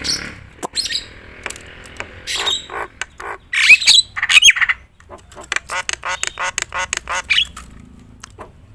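Javan myna singing loudly: a run of harsh squawks and clicks, sharp rising whistled notes about three and a half seconds in, then a fast chattering series.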